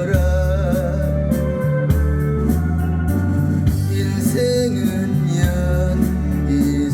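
Music: an electronic organ melody over a sustained bass line and a steady drum beat, the accompaniment of a Korean ballad.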